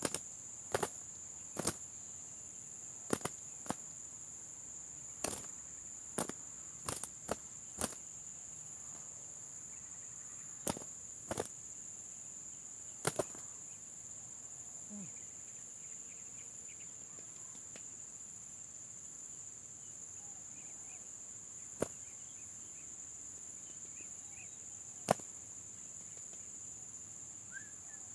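Steady high-pitched drone of insects, with scattered sharp clicks at irregular intervals and a few faint bird chirps near the end.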